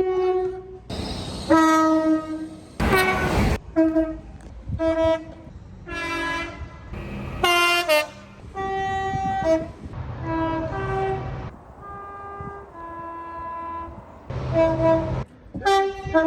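Train horns sounding in a string of short and longer blasts, the pitch and chord changing from blast to blast as if from several different locomotives. A loud rush of passing-train noise comes about one and about three seconds in.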